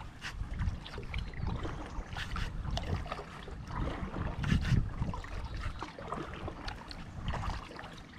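Kayak paddling: water splashing and dripping from the paddle blades at irregular moments, over an uneven rumble of wind on the microphone that swells loudest about halfway through.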